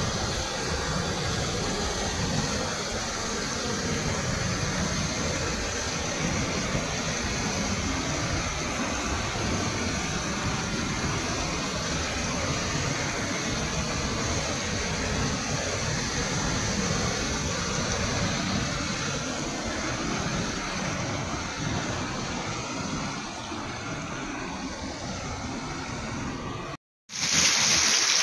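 Muddy floodwater from an overflowing reservoir rushing and churning over its spillway, a steady, unbroken rushing noise. Near the end it cuts off suddenly and steady rain hiss follows.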